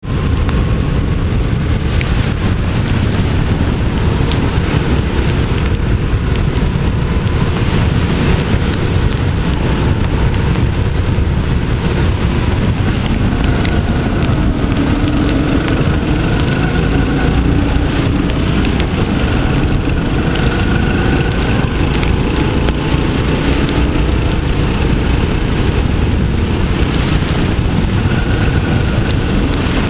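Rental go-kart engine running flat out on a lap, heard from on board, its pitch rising and falling with speed through the corners over a heavy low rumble.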